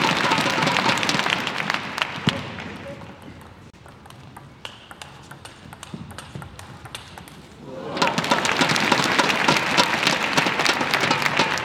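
Table tennis arena crowd noise dies down, then a hushed stretch with a few sharp clicks of the ball on bat and table during a rally. About eight seconds in, the crowd breaks out loudly again as the point ends.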